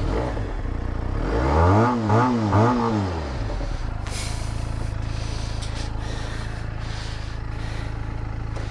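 Motorcycle engine idling, blipped three times in quick succession about a second and a half in, each rev rising and falling in pitch, then settling back to a steady idle.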